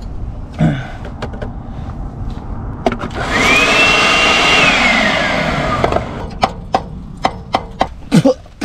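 Makita cordless leaf blower run on its suction side to suck dirt dauber nest debris out of an old carburetor: the motor spins up about three seconds in with a rising whine, runs steadily for a couple of seconds, then winds down. A few sharp clicks and knocks follow near the end.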